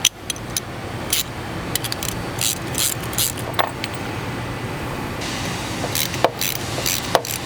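Metal clicks, clinks and short scrapes of hand tools working the bolts on a compact torsion swivel's end plate, over a steady low hum.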